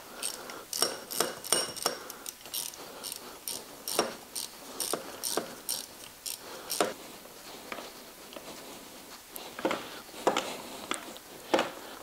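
Hand socket ratchet clicking as it turns fasteners on a motorcycle's carburetor intake, in quick runs of about three or four clicks a second at first, then scattered clicks and light metal knocks.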